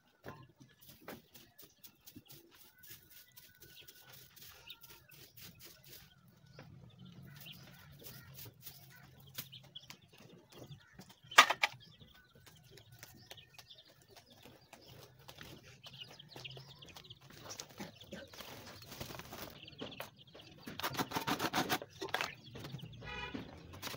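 Scraping, rustling and knocking from a cage being cleaned out by hand, with one sharp loud knock about halfway through and a busier stretch of scraping near the end. Chickens cluck now and then.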